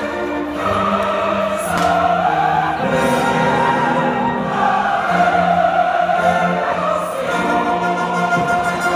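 Choral music with orchestra: a choir singing long held chords that change every second or two.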